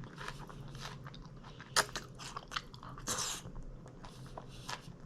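Close-up mouth sounds of someone biting and chewing a mouthful of taco salad: a run of crisp crunches and crackles, with one sharp, loud crunch about two seconds in.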